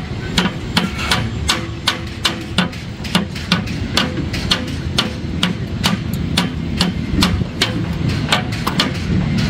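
Hand hammer striking column formwork in a quick, steady run of sharp blows, about three a second, over a low steady rumble of site noise.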